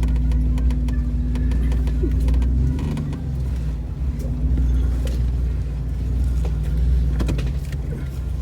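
Off-road vehicle's engine running steadily at low revs while crawling over rock, with a few sharp knocks about five and seven seconds in.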